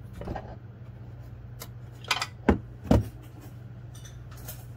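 Metal clinks and clicks of a 12 mm wrench working the lower bolt of a serpentine belt tensioner, as the bolt is snugged up. The loudest are two knocks about two and a half and three seconds in, heard over a steady low hum.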